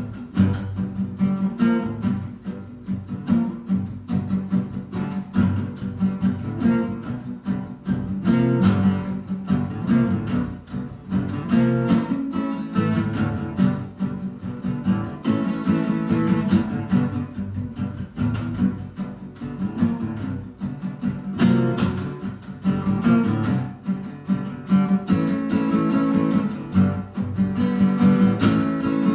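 Acoustic guitar played solo, a continuous run of plucked notes and strummed chords.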